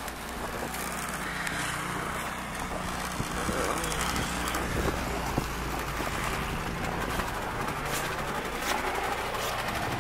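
Snowblower engine running steadily.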